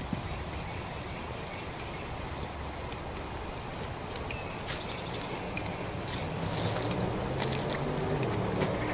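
Plastic MRE ration packaging being handled, with scattered crinkles and clicks that grow busier in the second half.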